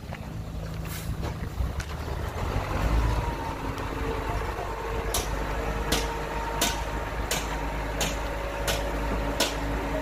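A heavy diesel engine on earthmoving equipment runs steadily, growing louder and deeper about three seconds in. In the second half a series of about seven sharp, evenly spaced clicks comes roughly once every 0.7 seconds.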